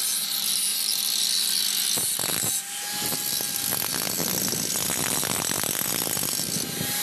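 Electric angle grinder running with a steady motor whine, its disc grinding against the steel exhaust pipe at the muffler joint while cutting away the rusted exhaust elbow. The grinding dips briefly about two and a half seconds in, then turns rough and chattering as the disc bites.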